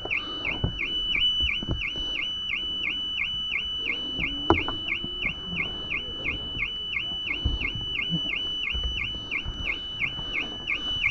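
2021 Audi A6's anti-theft alarm going off, set off by the lockout entry: a high-pitched electronic tone that dips in pitch about three times a second, without let-up. A sharp click about halfway through.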